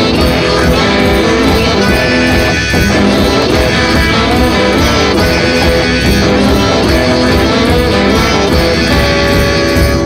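Rock and roll song played by a one-man band: an instrumental passage led by guitar over a steady beat, with no singing yet.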